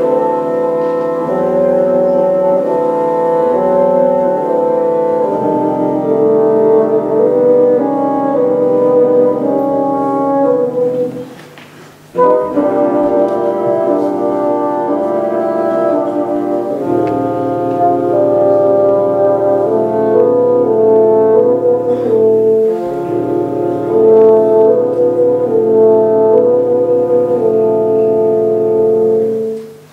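Bassoon quartet of three bassoons and a contrabassoon playing classical chamber music in held, chord-like notes, starting together at the opening of a movement. The playing breaks off for about a second near the middle, a low contrabassoon-range note sustains under the upper parts in the second half, and the music stops briefly just before the end.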